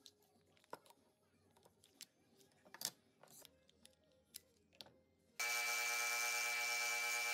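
A few faint clicks and taps of small wooden gear pieces being handled and clamped, one sharper click near the middle. About five seconds in, a scroll saw comes in abruptly, running steadily as its blade cuts a wooden part, with a constant hum of several steady tones.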